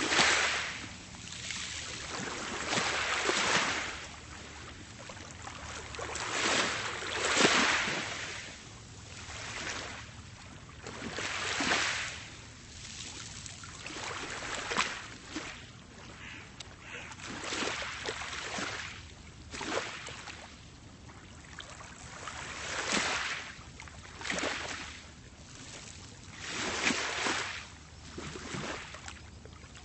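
Small, calm sea waves washing onto a pebble beach, each wave surging up with a hiss every few seconds and drawing back, without speech or music.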